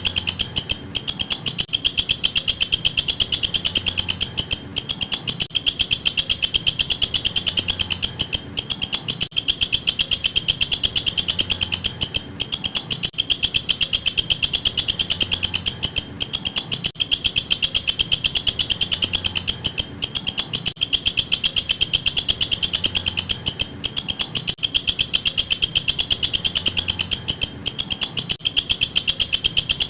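Walang kecek insect calling: a loud, high-pitched, rapid trill of fast, even pulses, broken by brief gaps every few seconds.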